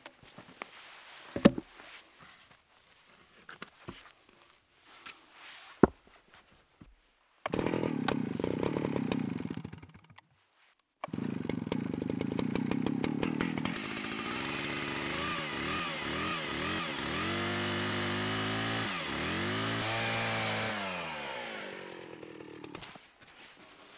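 A few knocks and handling clatter, then a Stihl two-stroke chainsaw running at high revs in two stretches. In the longer one its engine pitch dips and recovers again and again as the chain cuts a mitre through a log bench beam, and it dies away near the end.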